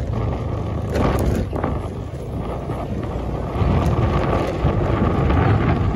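Wind buffeting the microphone over the steady rumble of a moving vehicle travelling along the road.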